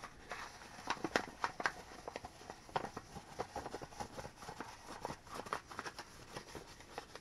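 A paper poster sheet being rolled up into a tube by hand, crinkling and rustling in short, irregular crackles.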